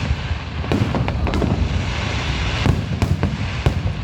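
Fireworks display: aerial shells bursting one after another, with sharp bangs at irregular intervals over a continuous low rumble and crackle.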